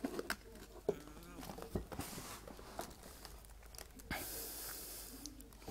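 Faint handling sounds as a hand presses a raw beefburger into a frying pan: a few light knocks and a soft rustle about four seconds in.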